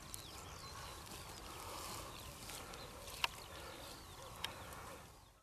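Faint open-field ambience with light rustling and a few sharp clicks, the loudest a little past three seconds in; the sound cuts off abruptly at the end.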